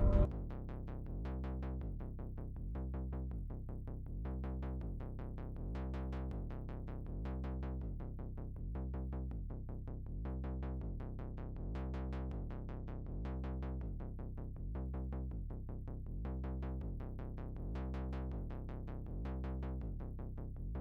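Background electronic music: a low synthesizer loop with a steady, evenly repeating drum-machine beat.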